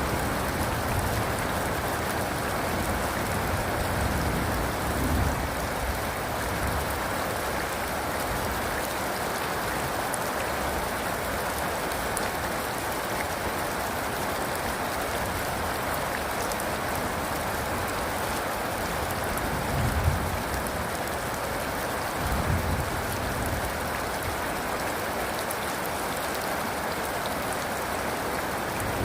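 Steady rain falling and pattering on surfaces, an even hiss throughout, with a few brief low rumbles about two-thirds of the way through.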